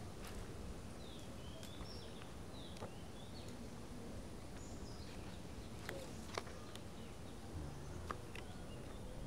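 Small birds chirping in short, repeated calls over a steady low outdoor background noise, with a few sharp clicks about six and eight seconds in.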